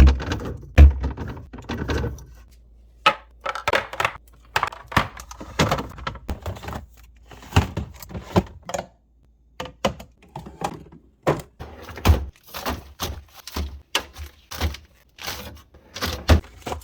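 Groceries and containers being set down, shifted and clicked into place while a refrigerator is restocked: an uneven run of knocks, thunks and taps, broken by a short pause about nine seconds in.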